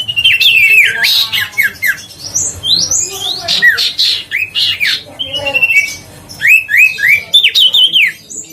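Common iora singing loudly and continuously, a busy run of short whistled notes that slide downward, mixed with quick trills and harsh chattering calls.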